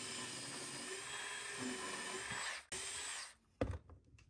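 Cordless DeWalt Atomic drill running steadily as its stepped bit bores a pocket hole through a pocket-hole jig into a wooden 2x2; it pauses for an instant, runs on briefly and stops about three seconds in. A few light knocks follow.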